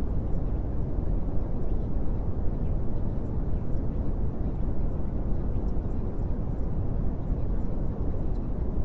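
Steady, even low rumbling noise with no distinct events, strongest in the deep range.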